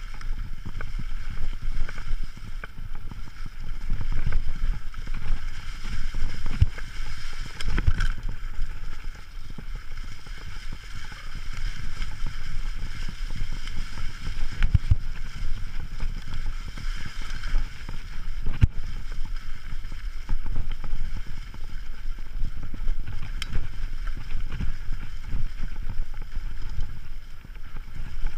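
Mountain bike rolling over a leaf-covered dirt trail, heard from the bike itself: an uneven low rumble and rattle from the tyres and frame over bumps, with wind on the microphone and a few sharp knocks.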